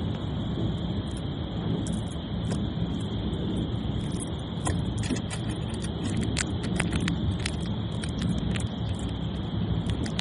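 Squirrel gnawing and cracking a nut: irregular small crisp clicks, coming thicker from about halfway through, over a steady low rumble and a steady high hiss.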